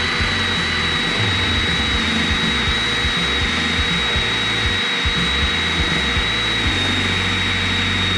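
Power drill running steadily with a high whine as a combination drill-and-tap bit grinds into a steel plate. The bit is chewing up and making little headway in the steel.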